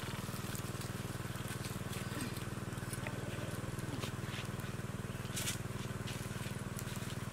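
A steady low mechanical hum, like a small motor running without change, with a few faint clicks and rustles on top.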